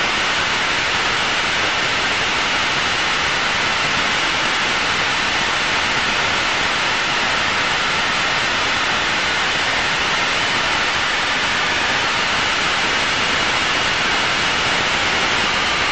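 Steady, even rushing noise of an Aero L-39 Albatross jet in a climb, its turbofan and the airflow heard from the cockpit.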